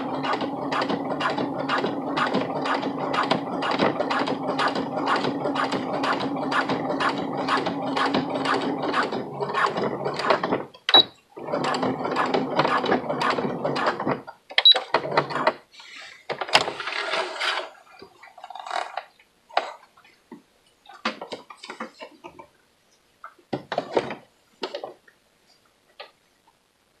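Electric home sewing machine stitching at a steady pace, its needle strokes about four or five a second over a motor hum. It stops about ten seconds in with a click, stitches again for about three seconds, then gives a short burst, followed by scattered short clicks.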